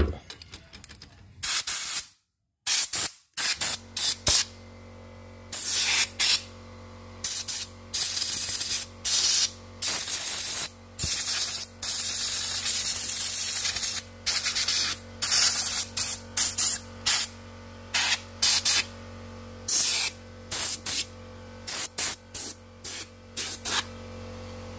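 Compressed-air blow gun giving repeated short blasts of hissing air, switched on and off many times, blowing dust out of an embroidery machine's mechanism. A steady low hum runs underneath from about three seconds in.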